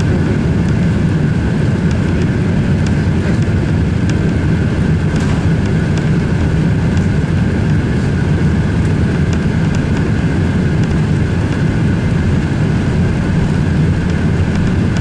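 Airbus A380 cabin noise during take-off: the four jet engines at take-off power give a steady, loud rumble with a constant high hum over it.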